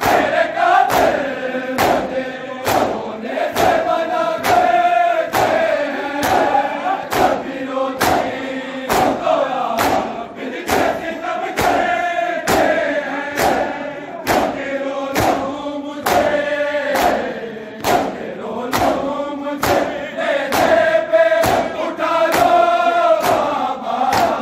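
A large crowd of men chanting a nauha (mourning lament) in unison, with open hands slapping bare chests in matam on a steady beat of about one and a half strikes a second.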